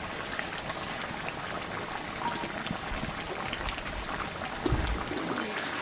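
Thick mutton curry bubbling and sizzling in a metal wok, a steady crackle of small pops and spits. A low thump comes about five seconds in.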